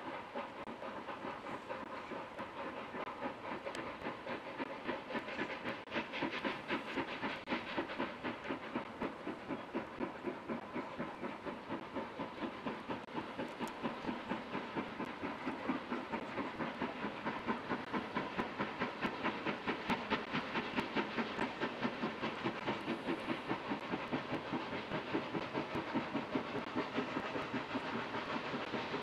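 Steam locomotive working hard, its exhaust beating in a quick, even rhythm with a steady hiss, growing gradually louder as it approaches.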